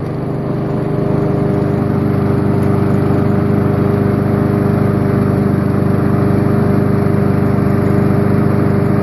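Honda GCV160 single-cylinder four-stroke lawnmower engine running steadily after a cold start, picking up slightly in loudness about a second in.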